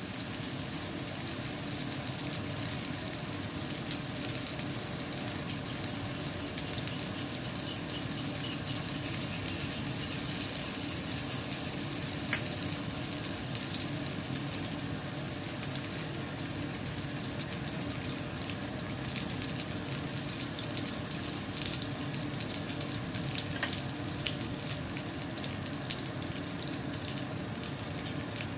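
Salmon frying in a pan: a steady sizzle with scattered small pops.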